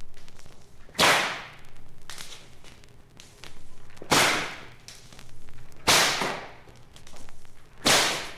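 Four sharp, sudden cracks, each with a short fading hiss, spaced irregularly one to three seconds apart, with softer swishing sounds between them.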